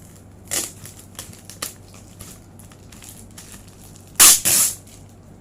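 Packing tape being ripped off a cardboard shipping box in short tearing strips: one about half a second in, a few smaller ones, then two loud rips close together about four seconds in.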